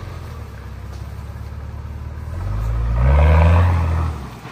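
Off-road 4x4 engine revving up hard while stuck in deep mud: the revs climb to a peak about three seconds in, with the wheels churning, then fall away near the end. It is struggling for traction on a track where the vehicles had to be winched out.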